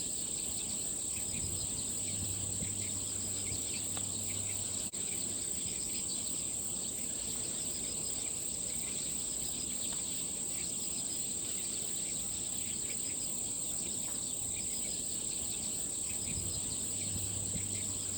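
Insects trilling in a steady, high-pitched chorus, with a fine rapid pulsing above the main tone. There is a brief break about five seconds in.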